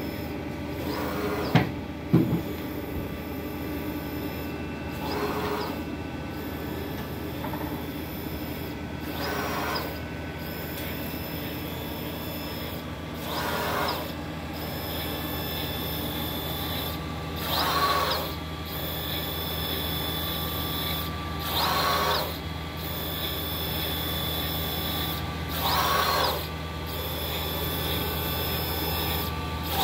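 Solar cell printer running: a steady low hum, with a short whir from the print-head carriage moving about every four seconds. Two sharp clicks about one and a half and two seconds in.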